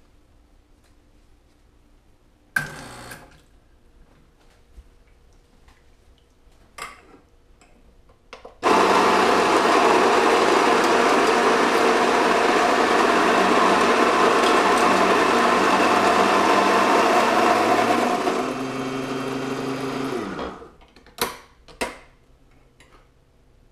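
Electric coffee grinder: a knock, then the motor starts and runs loud and steady for about ten seconds. It drops to a quieter, lower hum, then switches off and winds down with falling pitch, followed by a couple of sharp clicks.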